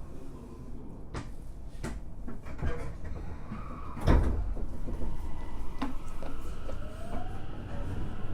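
Inside a Tokyo Metro 05 series car: sliding doors close with a few clicks and one loud thud about four seconds in. Near the end the Mitsubishi IGBT inverter's rising whine begins as the train starts off.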